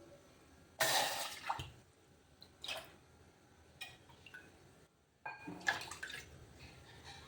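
Water poured out of a cup in two main pours, one about a second in and a longer one about five seconds in, with a couple of short splashes between.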